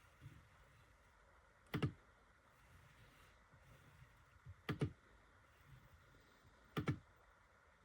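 Three sharp double clicks, each a quick click-click, about two to three seconds apart, over a faint background.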